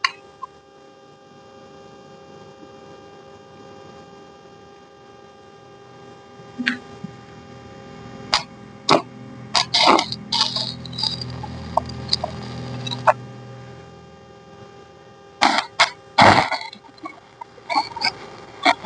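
Scattered knocks and clatter over a steady hum, with a low rumble through the middle and a cluster of louder knocks near the end.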